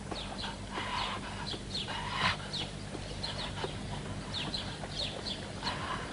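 Birds chirping in a cartoon soundtrack: many short, quickly falling high chirps, with a few louder, rougher calls about one second, two seconds and near six seconds in.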